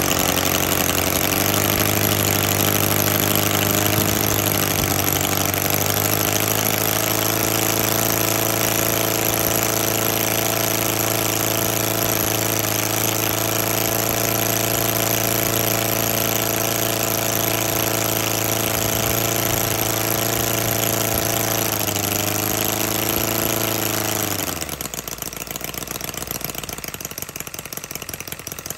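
Westbury Seal 15cc four-cylinder, four-stroke model aero engine with spark ignition, running steadily with its propeller turning. It picks up speed a second or two in, then drops sharply in speed and loudness near the end. The builder says it is not yet running perfectly, with the carburettor needle only a quarter turn out.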